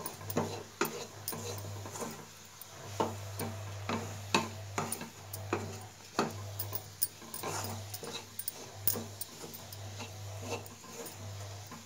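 Wooden spatula stirring and tossing crumbly steamed corn puttu in a perforated steel pan, with irregular light taps and scrapes of wood against the metal.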